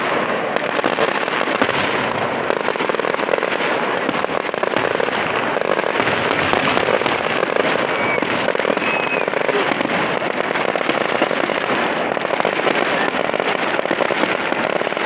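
Fireworks crackling in a dense, continuous barrage of small pops, with no single big bang standing out.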